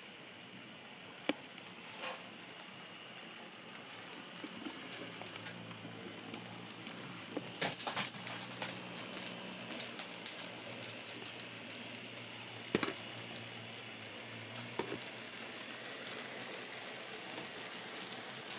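Kato N scale SD70-series model diesel locomotives running together with a freight train: a faint motor hum with scattered clicks of wheels over rail joints, and a cluster of louder clicks about eight seconds in as the train passes close.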